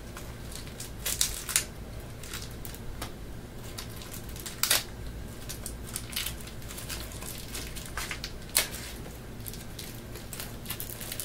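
A small clear plastic bag crinkling as it is handled and worked open by hand. There are scattered sharp crackles and clicks, with a few louder ones about a second in, near the middle, and about three-quarters of the way through.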